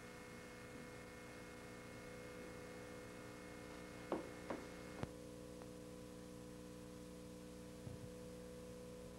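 Steady electrical hum, with three short clacks about four to five seconds in as a VHS cassette is pushed into a VCR's slot. A faint knock follows near the end.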